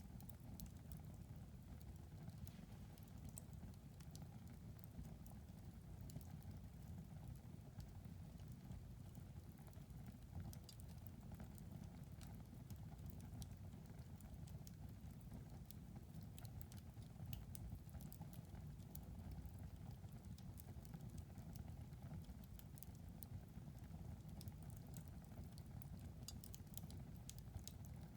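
Wood fire crackling in a fireplace: faint, irregular small pops and snaps over a low, steady rumble.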